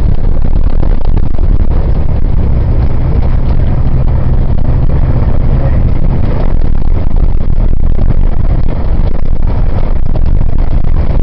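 Heavy wind buffeting on the microphone from travelling at road speed, with a vehicle's engine running beneath it.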